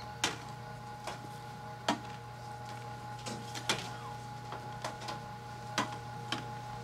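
Airport security checkpoint ambience: a steady machine hum from the X-ray baggage scanner area, with about eight sharp clicks and knocks at irregular intervals as trays and bags are handled.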